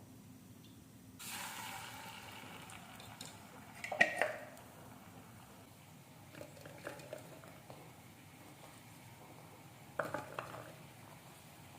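Dishes and kitchen utensils clinking and clattering, with the loudest clatter about four seconds in, a few lighter knocks, and another clatter near the end. A brief hiss of noise comes and fades in the first few seconds.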